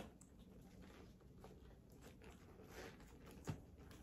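Near silence: room tone with a few faint taps and knocks from handling a boot, the loudest about three and a half seconds in.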